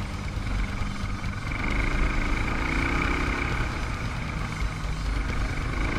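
Dual-sport motorcycle engine running under way on a dirt road, with wind rush on the helmet camera's microphone. The revs rise about two seconds in and climb again near the end.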